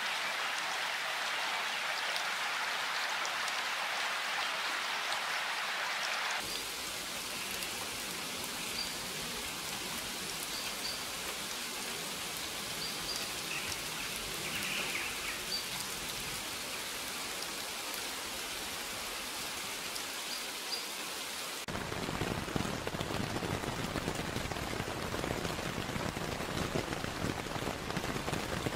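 Steady rainfall, an even hiss of falling rain that changes character abruptly twice. About six seconds in it turns thinner, with faint short high chirps now and then. About seven seconds before the end it becomes fuller and louder, with more low rumble in it.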